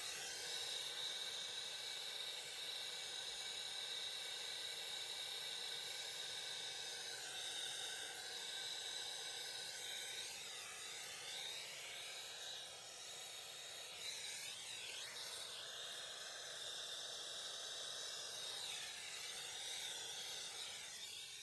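Handheld gas torch flame hissing steadily while heating copper refrigerant line joints for soft soldering, its tone wavering a few times; it cuts off abruptly at the end.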